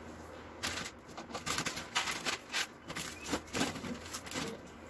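Plastic instant-noodle packet crinkling and rustling as it is handled, a run of irregular crackles.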